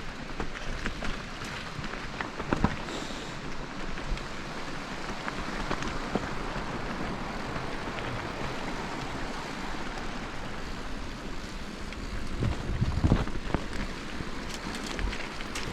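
Bicycle riding along a forest trail: a steady rush of tyre and wind noise, broken by occasional knocks and rattles from the bike over bumps, the loudest a little past two seconds in and around thirteen seconds in.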